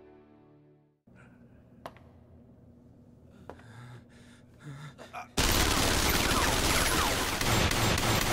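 Background music fades out. It gives way to a quiet anime soundtrack with a few sharp clicks. About five seconds in, loud, sustained gunfire breaks out suddenly, many shots running together.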